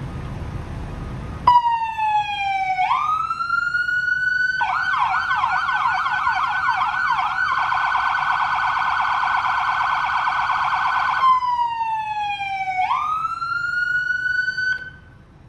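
Electronic police siren of a Whelen Core setup on a 2022 Ford Police Interceptor Utility, cycling through its tones. About a second and a half in, a wail dips and then climbs. It switches to a fast yelp of quick up-and-down sweeps, then a very rapid warble, then a slow wail dip and climb that cuts off suddenly near the end. A low rumbling noise comes before the siren starts.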